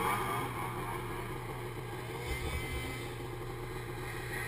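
Snowmobile engine running at a steady pitch while the sled is under way.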